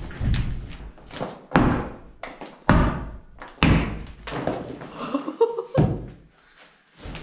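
Sledgehammer blows against a saw-cut section of brick wall, several heavy strikes about a second apart, each with a short ring after it. The blows are knocking the cut-out section loose to open a new doorway.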